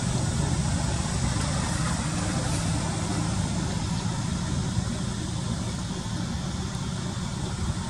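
Steady low rumbling noise with a fainter hiss over it, unbroken throughout.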